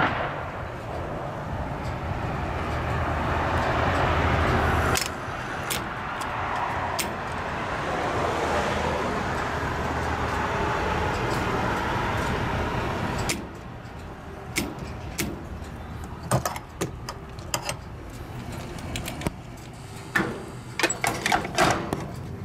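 Steady road and engine noise inside a moving car, cutting out about 13 seconds in. Then a quieter background with scattered clicks and knocks, and near the end a fuel pump nozzle being handled.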